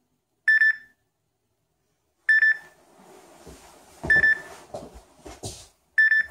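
Tablet alarm beeping: four short bursts of high electronic beeps, about one every two seconds. Bedding rustles and thumps as the sleeper stirs in the second half.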